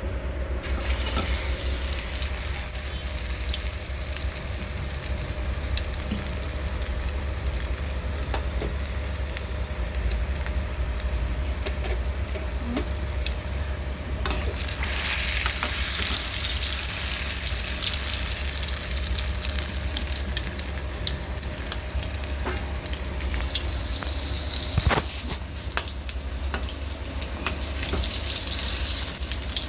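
Egg-coated chicken leg pieces deep-frying in hot oil in a kadai, with a steady dense sizzle and crackle that starts as they go in. The sizzle grows louder about halfway through, and there is a single knock near the end.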